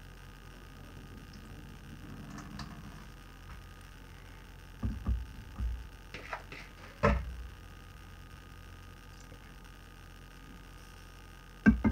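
Raw fish cubes and canning salt being tipped from bowls into a large glass jar: a cluster of soft thumps and knocks between about five and seven seconds in, and two more knocks near the end.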